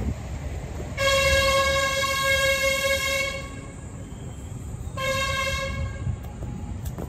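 A horn sounding at one steady pitch: a long blast of about two and a half seconds, then a shorter blast of about a second.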